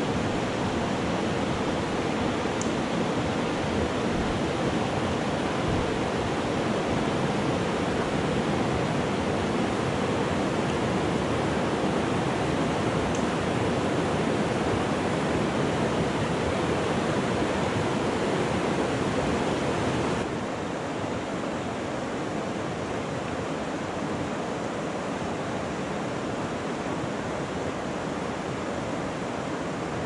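Steady rush of river rapids, whitewater pouring over rocks close by. About two-thirds of the way through it drops suddenly to a softer, steady water rush.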